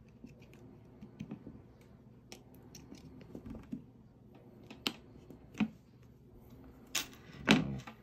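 Small plastic clicks and taps from handling a GoPro Hero 11 Black action camera while a memory card is pushed into it, with two louder knocks near the end.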